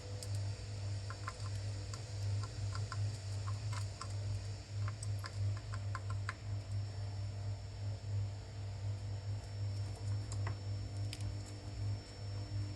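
Light, irregular clicks and taps of small hand tools on a circuit board, several a second at times, over a steady low hum.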